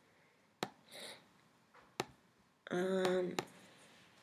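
Three sharp computer mouse clicks spread across a few seconds, with a soft sniff about a second in and a short hum from the person near the end.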